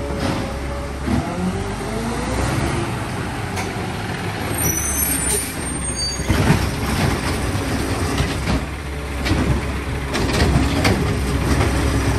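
Diesel engine of a Peterbilt 520 garbage truck with a McNeilus ZR side-loader body running close by, with a gliding whine over the first few seconds and a run of knocks and clanks in the second half.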